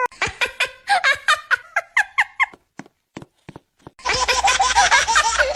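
Meme sound clip of high-pitched laughter in rapid cackling bursts, which stop for about a second and a half and then start again about four seconds in, now over a low hum.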